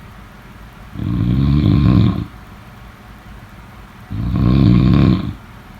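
A sleeper snoring: two loud, deep snores, each lasting just over a second, about three seconds apart.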